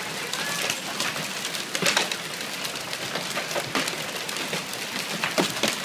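Marble-sized hail pelting a wooden deck and the ground: a steady hiss of falling hail and rain with many sharp clicks of individual stones striking.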